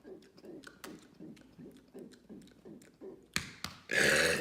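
A man gulping rhythmically, about three times a second, working up a burp, then two sharp clicks and a loud burp breaking out about four seconds in.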